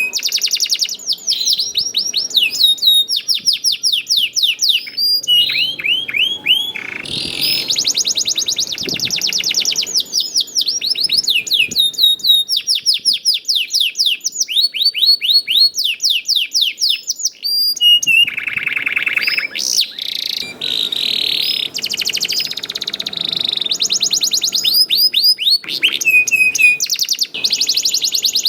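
Domestic canary singing in full song: long, fast rolling trills of repeated down-slurred notes, switching from one trill to another every few seconds.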